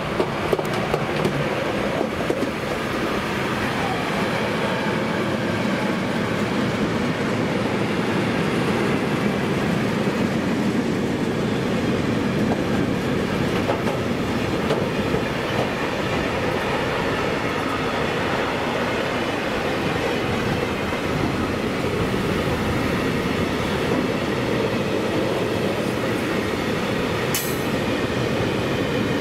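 A freight train of tank wagons rolling past close by, with the wheels running and clattering steadily over the rails. The locomotive at its head is a DB Class 185 electric.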